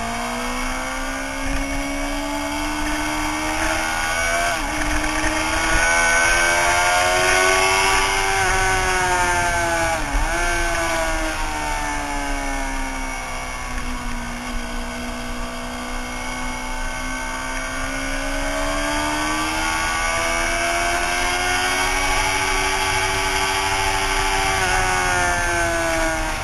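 Suzuki sportbike engine at track speed, recorded from a camera mounted on the bike. Its pitch rises and falls smoothly as the throttle is worked through the corners, with three brief sharp dips in revs, and a steady rush of wind over the machine.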